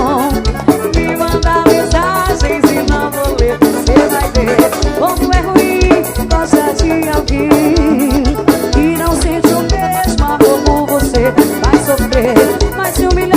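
Brazilian forró-style band music: a drum kit and shaker-type percussion keep a steady, driving beat under a wavering melody line.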